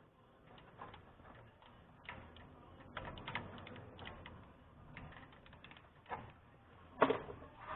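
Faint, irregular clicks and taps of things being handled, with a louder knock about seven seconds in.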